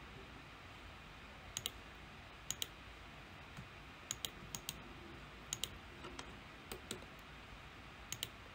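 Faint clicks of a computer mouse, mostly in quick pairs, about eight times over a few seconds.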